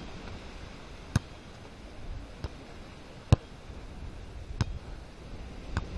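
Volleyball being struck by players' hands and forearms during a rally: five sharp slaps about a second apart, the loudest near the middle, over a steady hiss of wind and surf.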